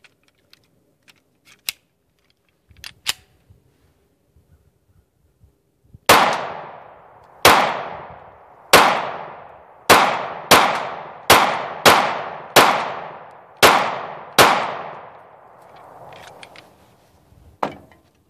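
Gen 4 Glock 26 9mm pistol fired ten times at an uneven pace over about eight seconds, emptying a ten-round ETS magazine; each shot is followed by a short echo. A few faint clicks come before the first shot, and one more sounds near the end.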